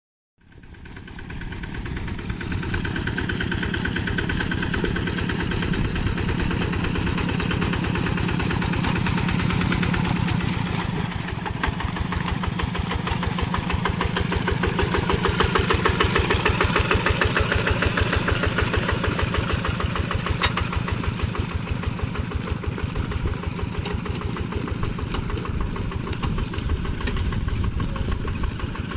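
Single-cylinder diesel engine of a two-wheel hand tractor running steadily under load with a fast, even chugging beat as it works a flooded rice paddy, fading in over the first couple of seconds.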